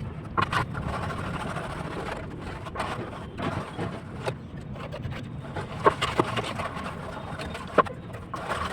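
Building-site noise: a steady low rumble with scattered sharp knocks, the loudest ones about six and eight seconds in.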